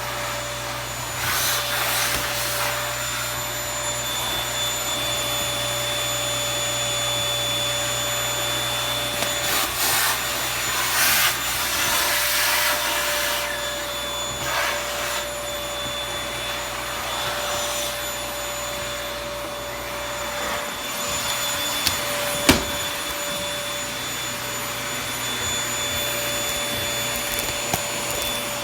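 Toshiba VC-PB9 vacuum cleaner running steadily, its motor humming with a constant whine. Louder rushing surges come and go through the first half, and there is one sharp knock about 22 seconds in.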